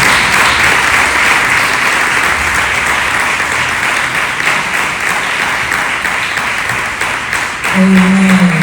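Congregation applauding steadily, easing off slightly toward the end, with a voice starting to speak near the end.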